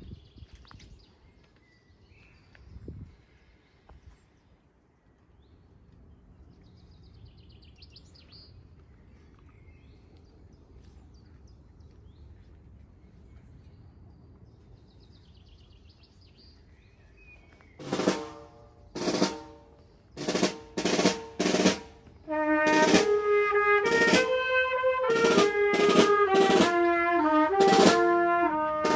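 A long outdoor hush with a few faint bird chirps, then a small wind band of clarinet, trombone and trumpet with snare drum starts to play. It opens with five short, separate chords over about four seconds, then goes into a continuous tune with the drum beneath it.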